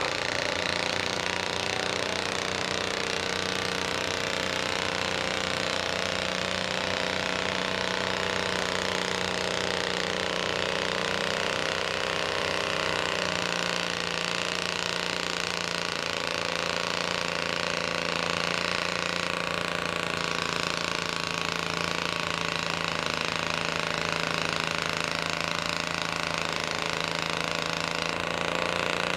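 Allis-Chalmers garden tractor's engine running hard under load through tall upright exhaust stacks as it pulls the weight-transfer sled: a steady, trombone-like exhaust drone whose pitch dips slightly about halfway through.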